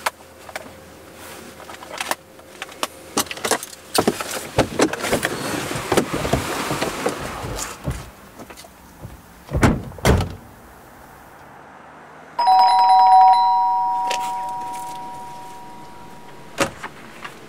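A two-tone doorbell chime rings once, about two-thirds of the way in: both notes sound together, the lower stops almost at once and the higher rings on and fades over a few seconds. Before it there are a few scattered knocks and thuds.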